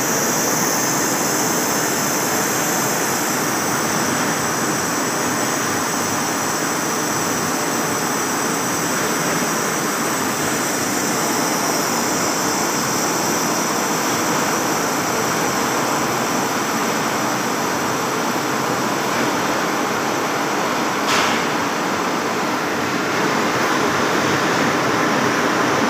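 CNC lathe turning a large steel roll: a steady machining noise that does not change, with one sharp click about 21 seconds in.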